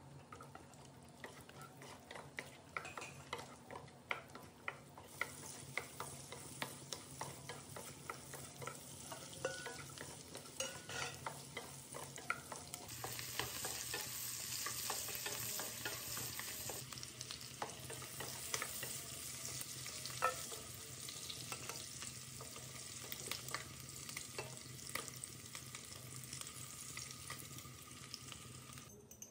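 Onion and green capsicum pieces frying in hot oil in a nonstick kadai: a steady sizzle, with frequent clicks and scrapes from a wooden spatula stirring them against the pan. The sizzle grows louder about halfway through.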